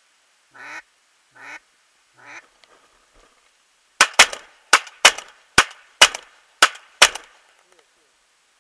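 Three duck quacks, each fainter than the last, then a rapid run of shotgun shots: about eight sharp reports in some three seconds.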